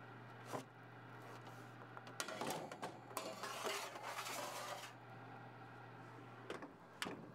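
Metal baking sheet sliding onto a wire oven rack with a soft scraping for a few seconds, then a couple of clicks near the end as the oven door is shut.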